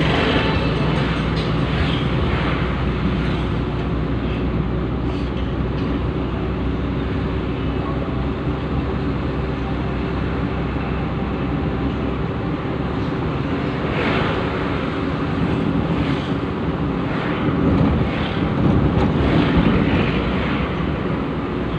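Steady road and engine noise of a car driving at speed, heard from inside its cabin, with some wind. It swells louder about fourteen seconds in and again near the end, as oncoming vehicles pass.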